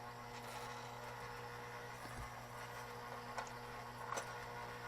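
Lionel No. 464 sawmill accessory running, its vibrator mechanism giving a steady low buzz on low transformer voltage, with a couple of faint clicks in the second half.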